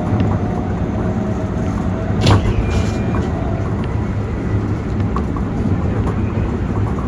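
Keikyu Main Line electric train running, heard inside the passenger car: a steady rumble of wheels on rail, with a sharp knock about two seconds in followed by a brief short hiss.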